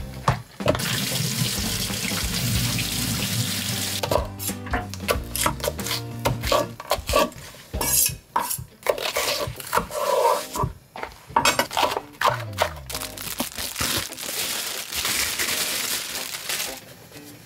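Kitchen tap running into a sink for about the first four seconds, then repeated clinking and clattering of dishes and utensils, over background music.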